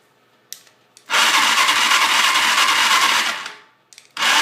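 Electric starter of a Chinese 250cc ATV cranking the engine, which turns over without firing: a sharp click about half a second in, a steady cranking whir for about two and a half seconds, then a second burst of cranking near the end. The owner takes the no-start for a lack of spark.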